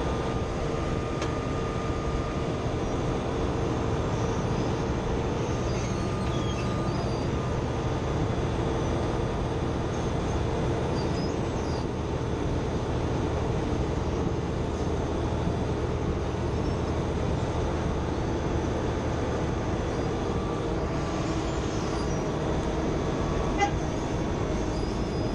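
Wirtgen asphalt milling machine running steadily while it mills: diesel engine and cutting drum heard together as an even machine noise, with one short click near the end.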